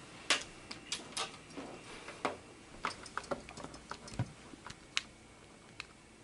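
Irregular light clicks and taps, a dozen or more at uneven spacing, with one low thump about four seconds in.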